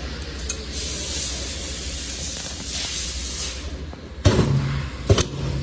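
TS-J42 pneumatic/hydraulic aluminium frame corner crimping machine: a steady hiss of air, then two sharp clunks a little less than a second apart, the first followed by a brief low hum.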